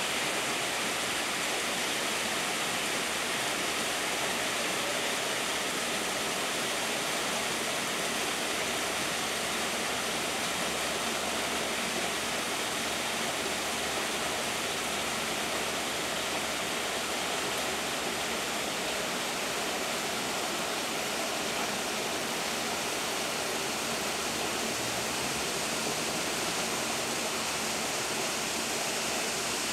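Steady rush of water from a small waterfall splashing into a pool, even and unbroken throughout.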